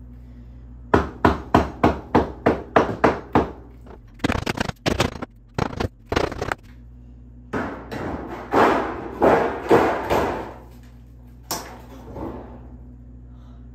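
Claw hammer blows against the log wall. A quick run of about nine even blows, about three a second, is followed by irregular knocks and several longer scraping, grinding stretches, then two last blows near the end.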